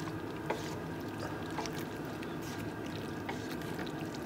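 Wooden spoon stirring tortellini in tomato sauce in a stainless steel pot: a soft wet churning with a few light taps against the pot, over a steady background hum.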